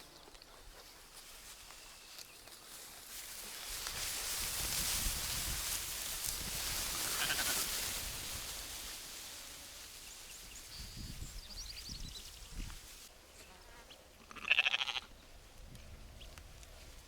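A Shetland sheep bleats once, short and loud, near the end, with fainter calls a few seconds earlier. Before that a broad rushing noise swells and fades over several seconds.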